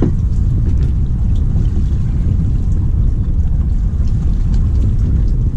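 Steady low rumble of wind and sea around a boat offshore, with no distinct knocks or voices.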